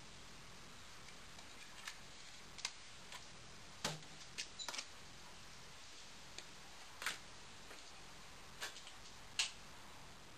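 About a dozen short, sharp clicks and snaps at irregular intervals over a faint hiss, the loudest about four seconds in and near the end.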